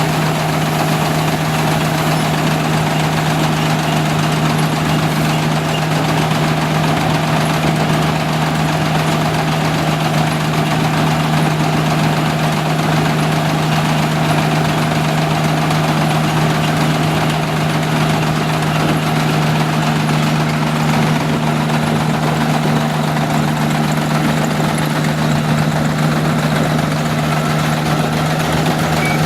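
Engine of a rice combine harvester running steadily, a constant low drone that does not change in pitch or loudness.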